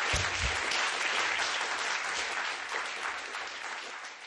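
Audience applauding, a dense crowd of clapping that thins out and grows quieter over the last two seconds. Two brief low thuds sound just after the start.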